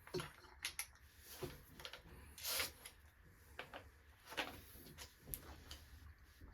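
Scattered faint clicks, taps and scrapes of a power drill and its bits being handled while the bit is changed, with no motor running.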